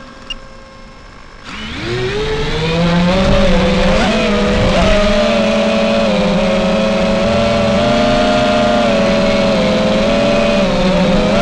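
Brushless motors of a 5-inch FPV quadcopter spinning up about a second and a half in, then running with a steady high whine whose pitch wavers slightly with the throttle.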